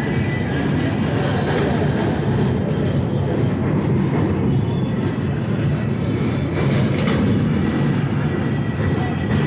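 Train running across a steel truss bridge, heard from aboard: a loud, steady rumble of wheels on the rails with a thin high ring throughout and a sharper clank about seven seconds in.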